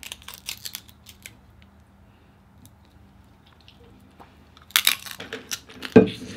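Small clicks and crackles of cooked crab shell being picked apart by hand, with a denser burst of crackling about five seconds in and a louder knock near the end.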